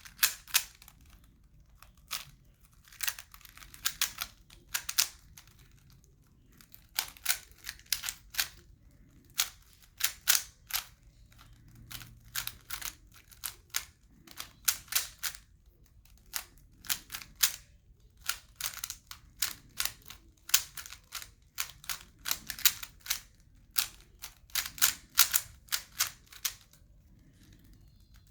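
3x3 Rubik's Cube being turned fast by hand: quick runs of plastic clicks as the layers snap round, broken by short pauses between runs.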